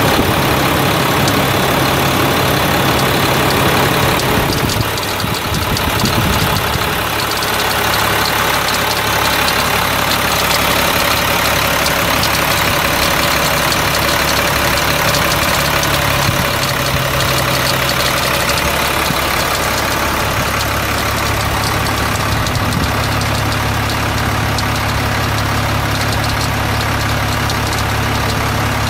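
Caterpillar C7 7.2-litre six-cylinder turbo diesel engine idling steadily, with a brief change in its sound about five seconds in.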